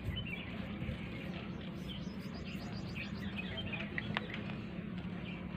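Small birds chirping here and there over a steady low outdoor hum, with one sharp tick about four seconds in.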